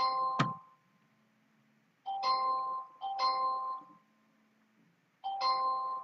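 An electronic two-note chime, a lower note followed at once by a higher one, sounds four times: the chimes come in pairs about a second apart with a quiet gap of about two seconds between pairs.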